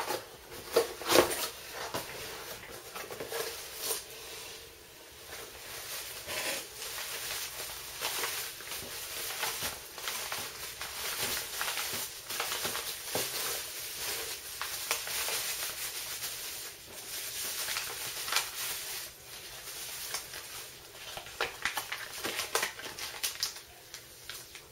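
A cardboard shipping box being opened by hand, then bubble wrap and paper crinkling and rustling as the packing is unwrapped, with irregular clicks and crackles throughout.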